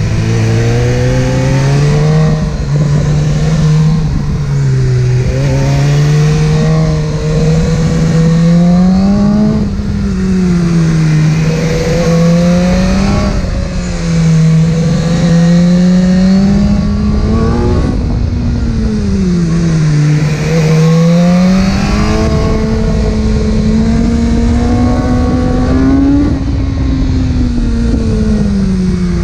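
Inline-four sport motorcycle engine running under way, its pitch climbing and dropping again every few seconds as the throttle is opened and closed.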